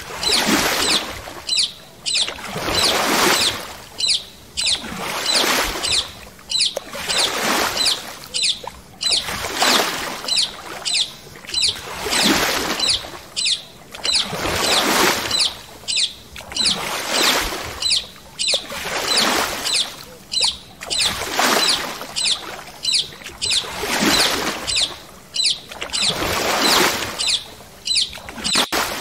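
Paddle strokes in the water from a stand-up paddle board: a steady rhythm of splashing swishes, about one stroke every second and a bit.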